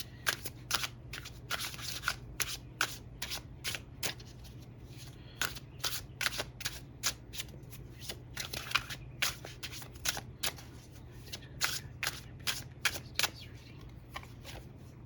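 Tarot cards being shuffled by hand: a long run of short, irregular card snaps and flicks, over a faint steady low hum.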